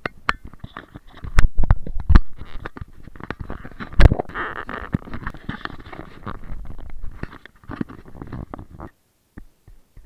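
Close handling noise on a GoPro camera fitted to a Fetch dog harness: hands rubbing and scraping against the housing and mount, with several sharp knocks, the loudest about four seconds in. The rubbing dies away near the end.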